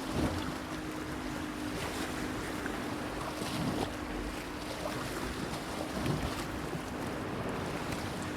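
Sea waves washing against a stone breakwater, with splashes about a quarter second in, near four seconds and around six seconds. A steady low hum runs underneath.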